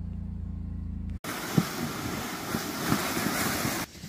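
A steady low motor hum that cuts off abruptly about a second in, followed by loud wind rushing over the microphone with a few knocks and thumps, which stops suddenly near the end.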